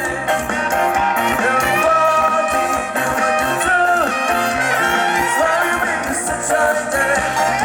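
A band playing an upbeat song, with a gliding lead melody over a steady beat.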